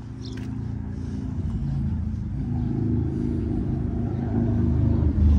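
A motor vehicle's engine running with a low hum, growing steadily louder, its pitch shifting about two seconds in.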